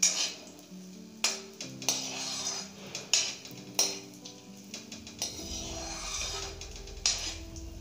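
Metal ladle scraping and clinking against a metal kadai as almonds, cashews and raisins are stirred while roasting, several sharp scrapes spaced irregularly. Background music plays underneath, with a bass line coming in about five seconds in.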